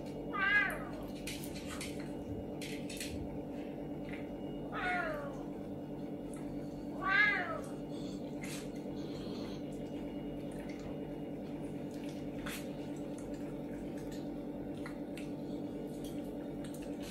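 Serval meowing three times, short calls that rise and fall in pitch, the first and last the loudest, over a steady low hum.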